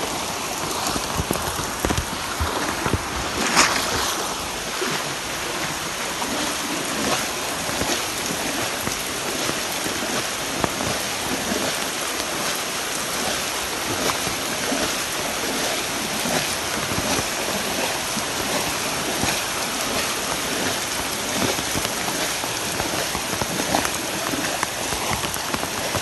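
Heavy monsoon rain falling steadily on floodwater and foliage, a dense, even hiss. A short sharp knock or splash stands out about three and a half seconds in.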